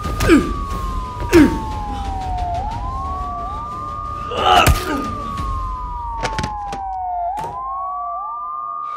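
Two police-style wailing sirens, each rising and falling every three to four seconds and overlapping out of step. Three sharp thuds sound over them in the first five seconds.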